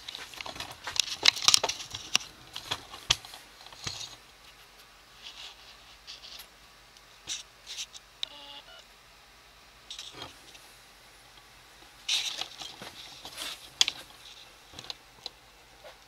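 Handling noise from a handheld camera being moved around a bucket on a workbench: scattered clicks, rubs and light knocks, in flurries near the start and again about twelve seconds in, with a brief electronic beep a little past the middle.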